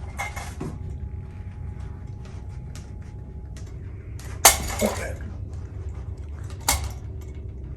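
Small clicks and creaks, then two sharp cracks about two seconds apart, the first the loudest, as load is pulled on a silicon bronze screw set in the wooden rudder blade during a pull-out test; the screw holds.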